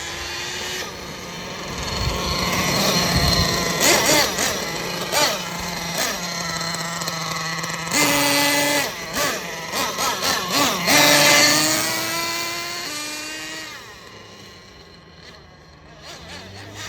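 Thunder Tiger S50 Sledgehammer nitro RC truck's glow engine revving hard in repeated blips of throttle, its pitch rising and falling. It fades to a lower, quieter run near the end.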